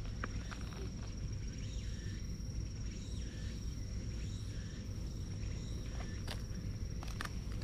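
A thin, steady high-pitched tone over a continuous low rumble, with a few sharp clicks, twice near the end.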